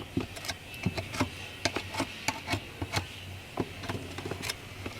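Irregular light clicks and taps, about three a second, from hands handling carpet, adhesive and trim while carpet is glued and tucked into a trim track, over a faint steady hum.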